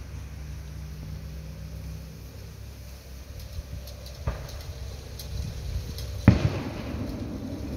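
Firework bangs: a sharp crack about four seconds in and a louder bang a little after six seconds, which rings on briefly. A steady low hum runs underneath.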